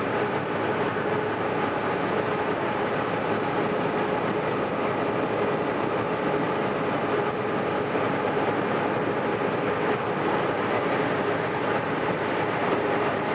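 Steady cabin noise of an airliner in its climb after takeoff: engine drone and rushing airflow with a constant hum, heard from a window seat.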